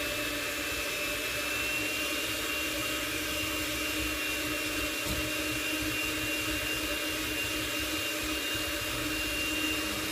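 Electric mixer running steadily, beating eggs and sugar for a génoise sponge until they foam up and rise.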